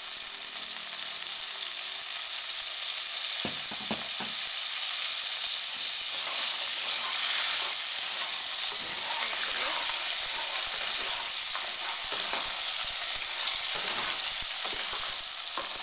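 Crab pieces with garlic, chili and light soy sauce sizzling in hot oil in an electric pan, with a steady high hiss. From about three and a half seconds in, a spatula stirs and scrapes the pieces against the pan, adding irregular knocks and scrapes.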